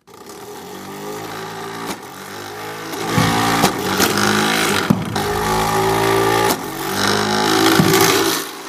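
Electric flywheel shooter whining as it spins up, its pitch rising at first and then briefly sagging several times as wiffle balls are fed through and launched. Several sharp knocks of balls and the mechanism cut through the whine.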